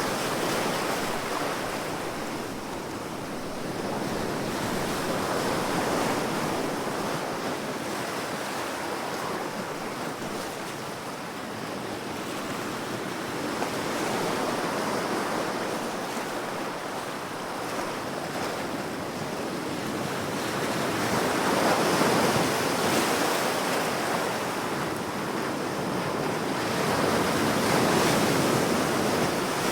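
Ocean waves breaking and washing on a shore, a continuous rush of surf that swells and ebbs every several seconds.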